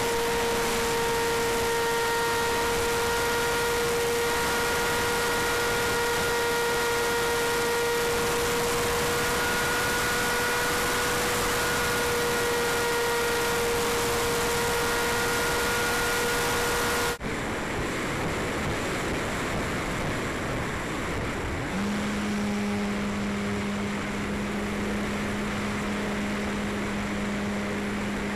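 Onboard audio of an electric RC plane's 1250kv brushless motor and propeller at full throttle: a steady high-pitched whine over heavy wind rush. About two-thirds of the way through the sound cuts off abruptly to a quieter wind rush, and a few seconds later a lower, steady motor hum comes in.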